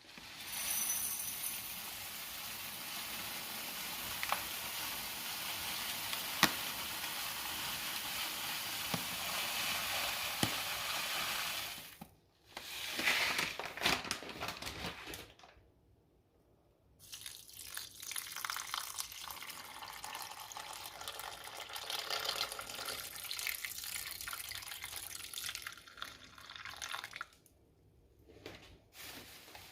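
Water running from a kitchen tap into a sink or bowl: a steady stream for about twelve seconds, a louder splashing stretch, a brief stop, then running again for about ten seconds.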